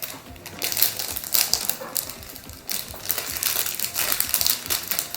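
A small plastic blind bag crinkling in the hands as it is handled and opened, in a run of irregular crackles.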